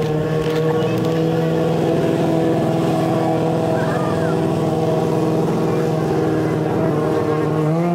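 Stunt motorcycle engine held at steady revs, then revving up near the end.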